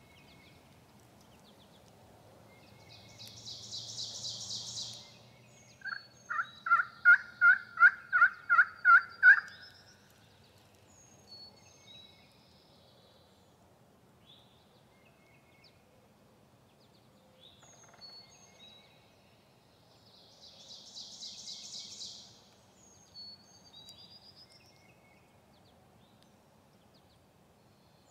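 Wild-turkey yelping: a run of about a dozen evenly spaced hen yelps lasting a few seconds, a quarter of the way in. Twice, a high, fast trill of about two seconds sounds, and small songbird chirps come and go.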